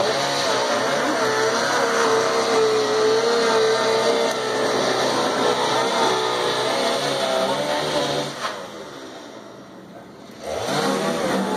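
Two-stroke chainsaw running at high revs while cutting up a hot tub shell, its pitch wavering under load. About eight seconds in it drops back to a quiet idle for about two seconds, then revs up again near the end.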